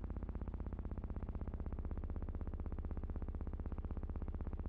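A steady, distorted electronic-sounding drone: a strong low hum with a fast, even flutter running through it.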